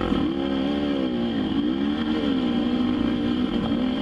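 Dirt bike engine revving under load through deep mud, its pitch dipping and climbing as the throttle is worked and the bike picks up speed.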